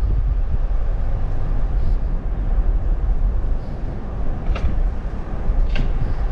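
A car on the move: steady low rumble of road and engine noise, with two brief clicks near the end.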